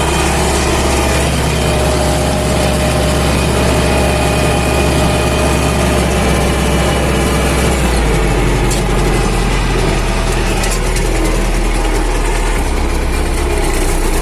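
MTZ-80 tractor's four-cylinder diesel running steadily under load in the field. Its pitch dips slightly about eight seconds in.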